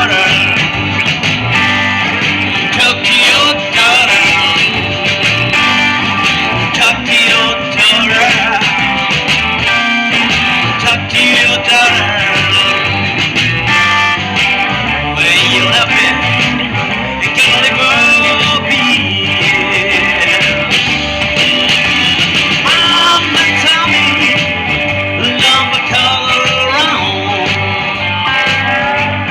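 Blues band playing live in a rock-and-roll style, with the guitar to the fore.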